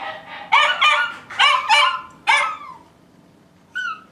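Dog barking: a quick run of about five barks, each falling in pitch, then a pause of about a second and one short bark near the end.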